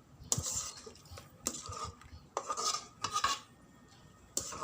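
Metal ladle scraping and clinking against a cooking pot in several short bouts, scooping out boiled beef shank.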